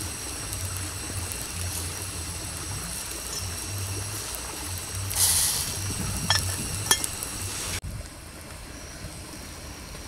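A pot of crabs boiling on a portable butane cartridge stove, a steady hiss over a low pulsing hum. A short louder hiss about five seconds in, then two light metal clinks as the pot's lid is handled, after which the sound drops to a quieter hiss.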